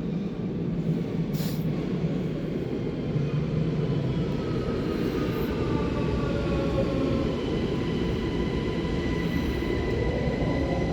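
Electric train at the platform: a loud low rumble of wheels and running gear. A motor whine falls in pitch from about four seconds in and then holds steady.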